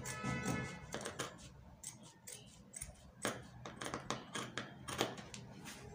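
Fabric scissors snipping through dark fabric, cutting out a curved panel along a chalk line: a run of short, crisp snips, a couple each second. In the first second there is also a brief pitched tone and a dull bump.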